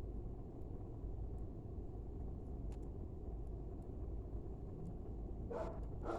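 Wood fire burning with a steady low rumble and occasional faint crackles. Near the end, a dog barks.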